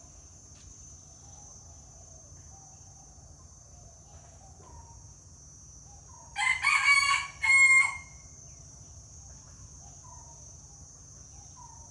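A rooster crows once, loud, a long drawn phrase ending in a short final note, over a steady high-pitched insect drone.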